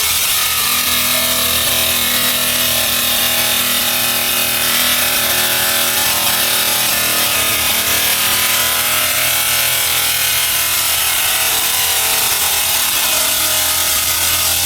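Stone-working machine running steadily on granite: a constant harsh cutting noise with a low hum underneath.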